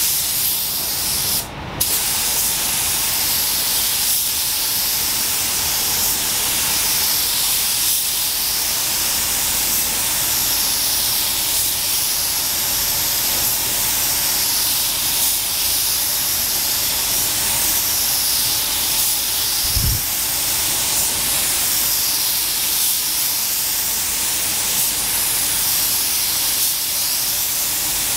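Compressed-air paint spray gun hissing steadily, with a brief break about a second and a half in. A short low thump sounds about two-thirds of the way through.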